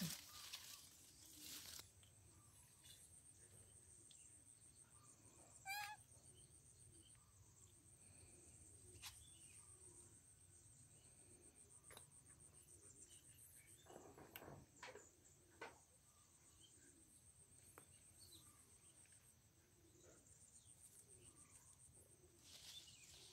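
Near silence outdoors: a faint, steady, high-pitched insect trill, with a few light clicks and rustles of leaves and twigs. One short warbling call about six seconds in.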